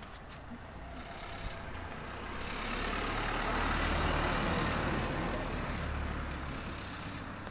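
A motor vehicle passing by on the street: its engine and tyre noise grows from about two seconds in, is loudest around the middle, then fades away.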